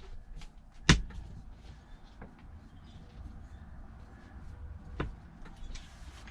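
Work noises from taking apart a truck's shifter surround: a sharp knock about a second in, another about five seconds in, and small clicks between as screws and parts are handled.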